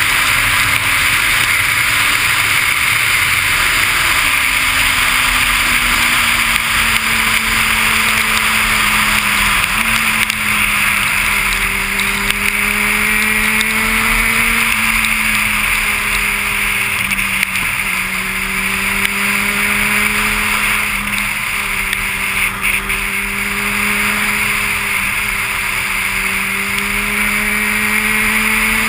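Vehicle engine running steadily under way, its pitch drifting up and down and dipping briefly a few times, over a steady hiss.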